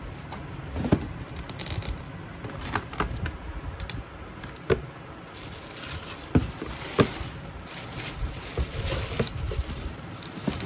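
Cardboard shoebox being handled and opened, with a few sharp taps and knocks. Tissue paper rustles and crinkles as it is folded back from the sneakers, loudest around the middle.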